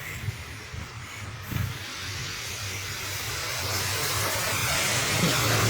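A rushing hiss that swells from about two seconds in and is loudest near the end, over a low steady hum.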